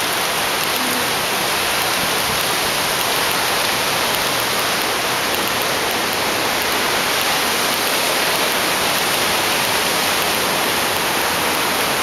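Steady, unbroken rush of river white water pouring over rocks below a small hydroelectric dam.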